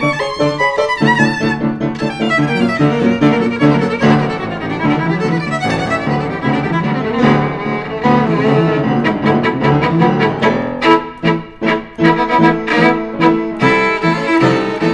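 Violin and piano duet playing a fast toccata, the notes changing quickly. From about ten seconds in, a run of sharp, hard-accented notes.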